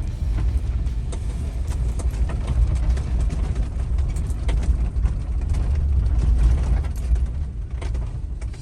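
Camper van driving on a rough gravel road: a heavy low rumble with frequent knocks and rattles from the bumps.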